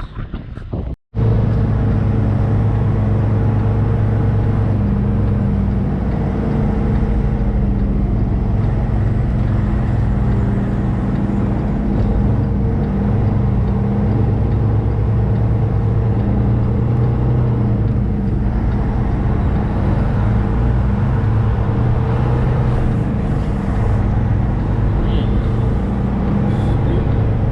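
Semi-truck's diesel engine running at a steady speed, a continuous low drone, beginning after a brief cut-out about a second in.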